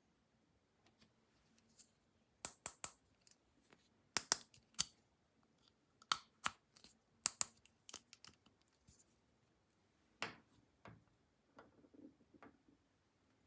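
Irregular sharp clicks and snaps, some in quick clusters, with a few softer scrapes near the end: plastic toy tool parts and packaging being handled.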